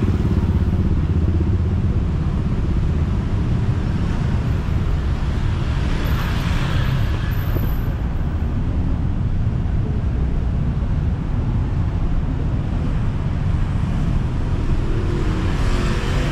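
Road traffic of cars and motorcycles running steadily with a low rumble, one passing vehicle swelling louder about six seconds in and another near the end.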